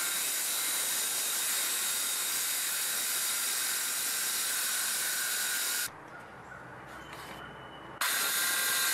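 Ryobi 18-volt cordless saw cutting through a thick wooden stair tread, heard as a steady hiss. The saw stops for about two seconds near the end, leaving a faint hum, then cuts again.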